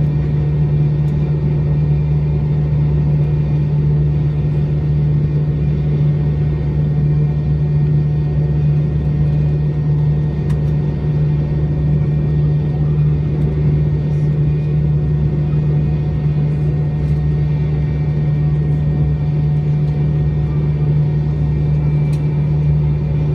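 Cabin noise inside a McDonnell Douglas MD-90 taxiing with its engines at idle: a steady low hum under an even rush, with no change in pitch or level.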